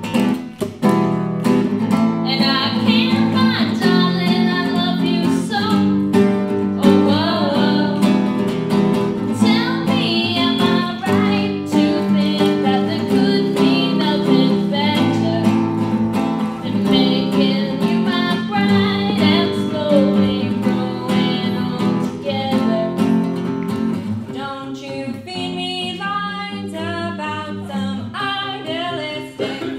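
A young woman singing to a nylon-string classical guitar. The guitar plays alone at first, and the voice comes in about two seconds in.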